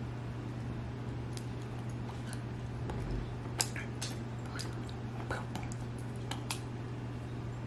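Steady low hum with scattered light clicks and taps, one sharper tick about three and a half seconds in.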